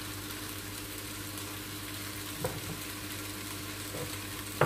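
A kitchen knife slicing raw chicken breast on a wooden chopping board, with a few soft taps of the blade on the board and a sharper tap near the end, over a steady hiss and low hum.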